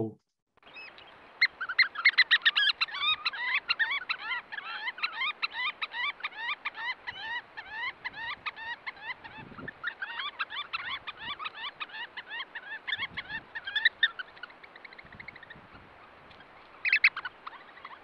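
A roost of Eurasian oystercatchers piping: many shrill calls in rapid, overlapping series, over a faint steady hiss, the squabbling of quite argumentative birds. The calling dies away about fifteen seconds in, and one more loud call comes near the end.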